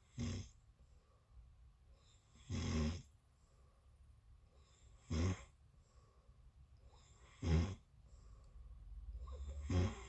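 A sleeping person snoring: five short snores, about one every two and a half seconds, with breathing growing louder just before the last one.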